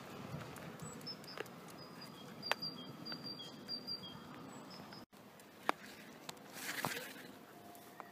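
Dog walk on paving: light footsteps and scattered clicks, with a run of short high chirps in the first half and a brief rustle near the end as the dog pushes into the grass verge.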